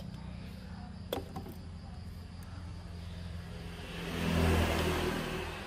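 A motor vehicle passing by, swelling up about four seconds in and fading away near the end, over a steady low hum, with a single sharp click about a second in.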